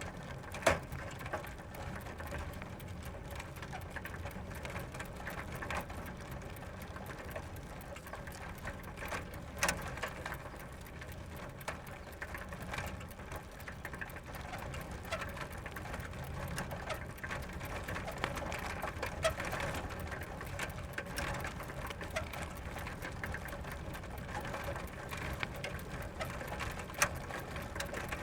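Bicycle rolling slowly over gravel: steady crunching of the tyres on loose stones, with a few sharp clicks standing out now and then.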